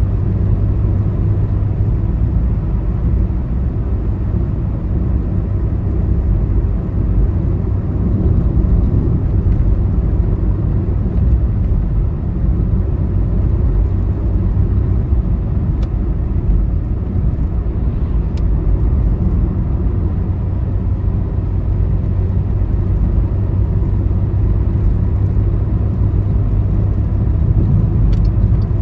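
Road vehicle travelling on a highway: a steady, low drone of engine and road rumble that holds an even level, with a few faint ticks around the middle and near the end.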